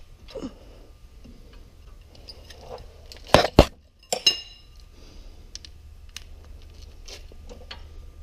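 Steel hand tools clanking against metal while a tight brake caliper bolt is worked loose: two loud knocks about three and a half seconds in, then a ringing metallic clink, with faint scattered clicks.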